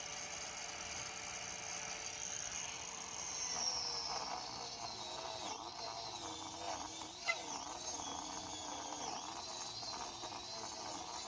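Bauer 4-1/2 inch 8-amp angle grinder running. Its high motor whine is steady at first, then dips and wavers in pitch from about three and a half seconds in, as the disc grinds into a wooden tree stump with a rasping sound. A single sharp tick comes about seven seconds in.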